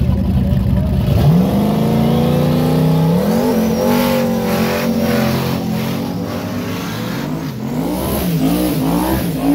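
Car engine accelerating hard: a low rumble climbs sharply in pitch about a second in and holds high, steps up again, then rises and falls repeatedly near the end.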